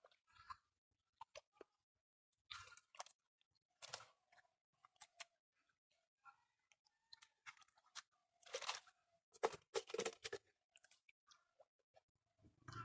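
Hands working in mud and shallow water: irregular short squelches, crunches and small splashes, the loudest bunched together about two-thirds of the way through.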